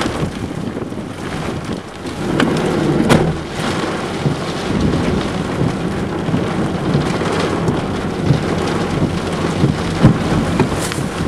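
Heavy rain beating on a car's roof and windshield, with a few sharp taps, the loudest about three seconds in.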